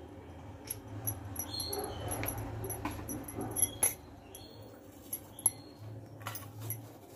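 Light, scattered clicks and clinks of a small spoon against a stainless steel plate as turmeric is sprinkled over bitter gourds, over a steady low hum.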